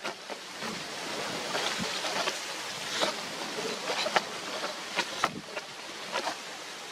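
Steady outdoor wind rush with rustling, broken by scattered short clicks and knocks.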